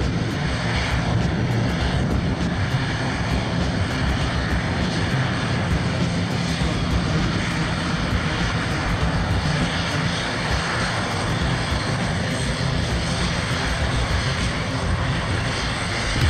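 CASA C-295's twin Pratt & Whitney Canada PW127G turboprop engines and propellers running steadily as the aircraft taxis and lines up on the runway.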